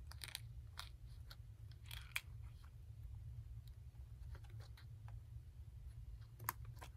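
Faint plastic clicks and handling noise as an HP Pavilion dv5 laptop keyboard is fitted and pressed down into the laptop's case, with a sharper click near the end, over a low steady hum.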